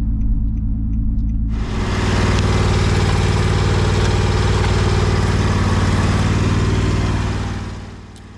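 An engine running steadily. About a second and a half in, a loud rushing noise starts abruptly over it, then fades away near the end.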